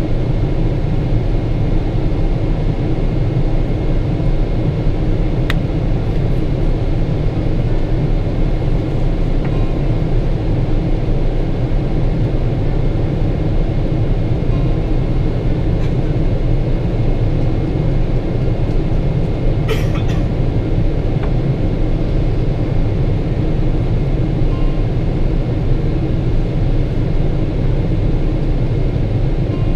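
Steady cabin noise of a Boeing 777-300ER in flight: airflow and its GE90 engines, heavy in the low end. A brief click about twenty seconds in.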